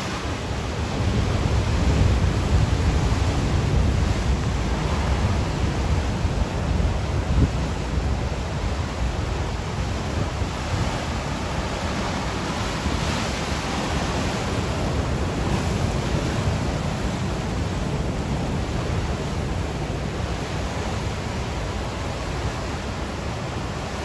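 Ocean surf washing onto a shore: a continuous noisy wash with a low rumble underneath. It swells louder for several seconds near the start, then settles to an even level.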